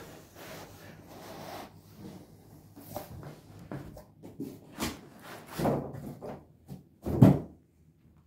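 A cardboard box being handled and a fabric-covered gun case slid out of it, with rustling, scraping and light knocks. A heavier dull thump about seven seconds in as the case is set down on a wooden table.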